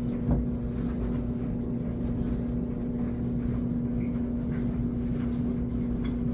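Whirlpool top-load washer humming steadily with a low rumble as its calibration cycle begins, with a faint click about a third of a second in.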